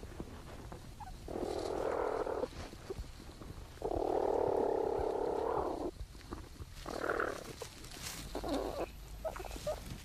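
Platypuses in their nesting burrow, picked up by a microphone inside the chamber while the young suckle. There are two long, noisy rasping sounds, the second about two seconds long, followed by two shorter ones.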